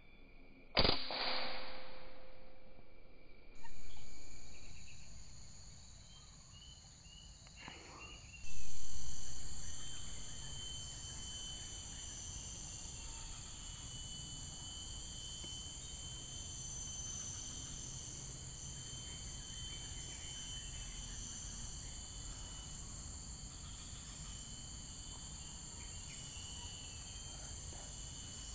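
Steady chorus of insects holding several high, even tones. It is broken early on by a sharp crack about a second in and by a louder thump a little past eight seconds.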